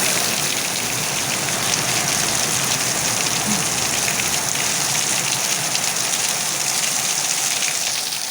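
Heavy rain falling steadily in a thunderstorm, a dense even hiss of drops that cuts off suddenly at the very end.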